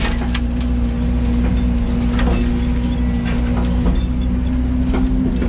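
Yanmar VIO80 excavator's diesel engine running steadily at raised idle under hydraulic load, with several short sharp cracks scattered through as the bucket and thumb squeeze a tree stem to break it.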